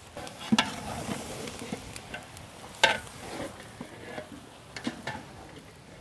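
A flat spatula stirring whole brinjals through an oily masala in a large metal pot, with a steady sizzle of frying. A few sharp scrapes and knocks of the spatula against the pot come through, the loudest nearly three seconds in.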